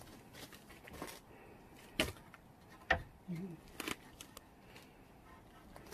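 Wooden sticks of eulachon knocking and clacking against the wooden poles of a smokehouse drying rack as they are shifted into place: a few separate sharp knocks, the loudest about two and three seconds in, another near four.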